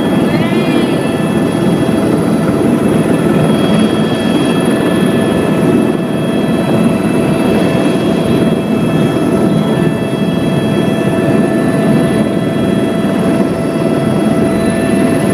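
Helicopter engine and rotor heard from inside the cabin during lift-off and climb: a loud, steady drone with constant high whines over it.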